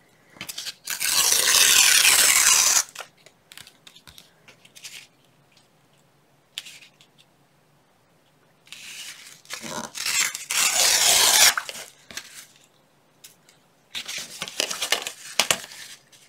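Patterned paper being torn along a deckle-edge tear ruler, in three long rips with light paper rustles between them.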